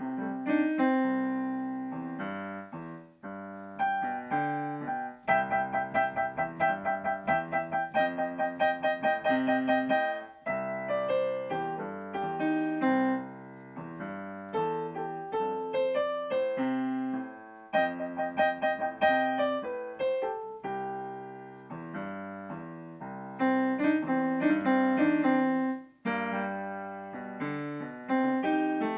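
Solo digital piano playing a piece, with a fast stretch of quickly repeated notes in the middle and brief breaks between phrases.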